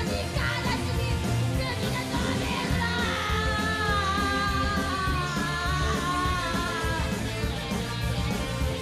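Live punk rock band playing loudly with drums, bass and keyboard. A wavering high melodic line stands out through the middle of the passage.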